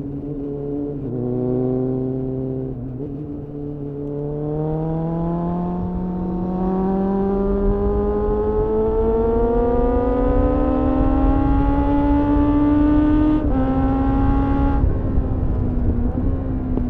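Suzuki Bandit 600 inline-four motorcycle engine through a GPR Furore Nero aftermarket exhaust, heard onboard: it pulls steadily up through the revs for about ten seconds, with a brief break and slight drop in pitch near the end. The throttle then closes and the revs fall away.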